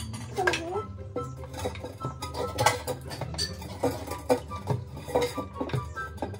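A metal spoon clinking and scraping against a stainless-steel container: a quick, irregular series of sharp metallic clinks, each with a short ring.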